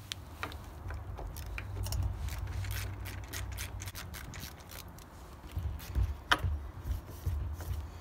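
Handling noise from the camera being moved and repositioned: a low, uneven rumble with scattered light clicks and a sharper knock about six seconds in.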